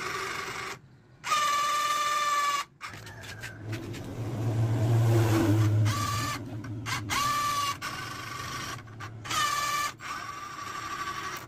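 Electric gear motors on a homemade remote-controlled mower whirring in short separate runs as the transmitter sticks are worked. Each run rises in pitch as it starts, then holds steady. Around the middle, a lower, rougher hum is the loudest part.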